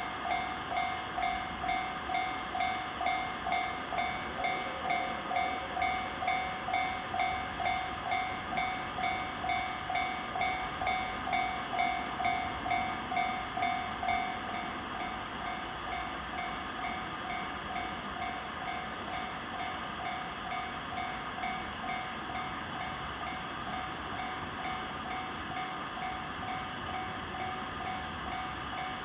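Japanese railway level-crossing warning bell ringing its electronic "kan-kan" tone, about two strikes a second, with a steady rumble beneath. About halfway through the bell drops to a quieter level and keeps ringing.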